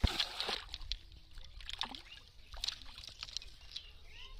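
Water splashing and sloshing with scattered clicks and knocks, starting suddenly at full loudness.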